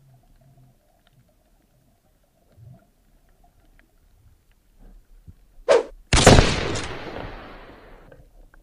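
Speargun fired underwater into a rock crevice: a sharp crack just before six seconds in, then a much louder crack that fades over about two seconds.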